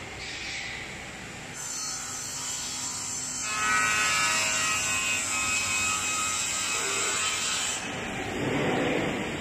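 Sliding table panel saw cutting lengthwise through a wood panel. The blade bites in about one and a half seconds in, runs with a high whine through the cut, and the cutting sound stops near eight seconds in.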